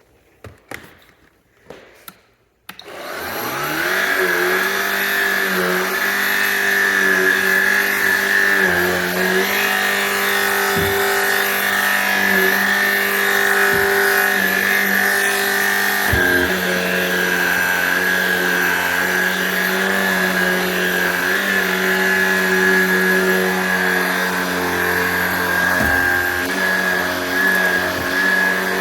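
Shark Rocket PowerFins cordless stick vacuum on stair carpet: a few light clicks, then the motor switches on about three seconds in, whines up to speed within a second and runs steadily, its pitch dipping briefly now and then as the head is worked over the carpet.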